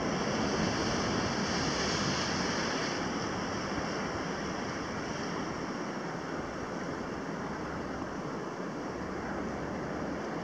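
Ocean surf breaking against a rock jetty: a steady rush of waves and foaming water.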